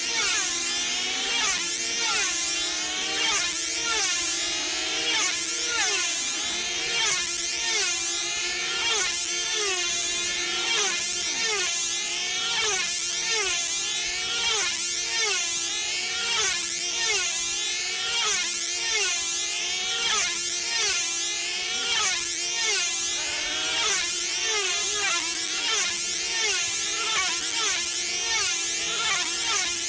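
High-pitched whine of several F2C team-race control-line model aircraft engines, small 2.5 cc model diesels, running flat out as the planes lap the circle. Each engine's pitch drops as its plane sweeps past, so the sound is a continuous stream of overlapping falling sweeps, about one a second.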